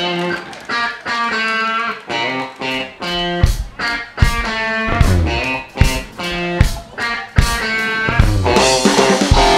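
Live rock band starting a song: an electric guitar plays a choppy, repeated chord riff, and a low beat from bass and drums joins about three and a half seconds in.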